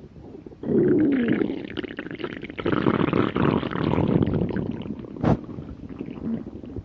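A person's hungry stomach growling: a long, loud gurgling rumble that starts suddenly under a second in, with a short falling whine at its start, and eases off near the end. A sharp click about five seconds in.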